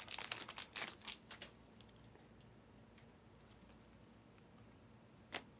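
Foil wrapper of a Panini Prizm basketball card pack crinkling as it is peeled off the cards during the first second and a half, then quiet card handling with a single sharp click of cards near the end.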